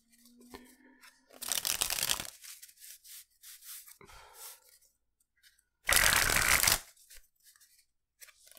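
A deck of thin, crushed-stock playing cards being riffle-shuffled and bridged: two short riffles, the second, about six seconds in, the louder, with softer card handling between.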